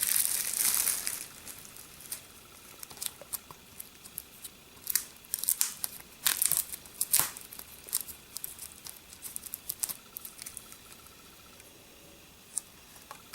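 Plastic wrapping being torn and crinkled off a DVD case. A loud burst of crinkling comes in the first second or so, then scattered small crackles and clicks.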